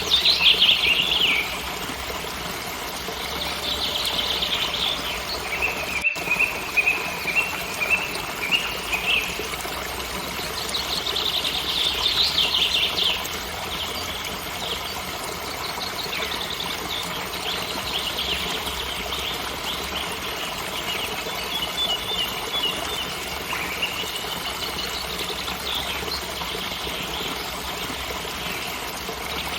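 Songbirds singing in trills and chirps, a phrase every few seconds, over the steady rush of a waterfall.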